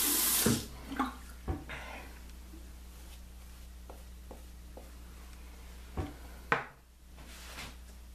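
Sink tap running water, shut off about half a second in. Then a few scattered small clicks and knocks, two of them louder near the end.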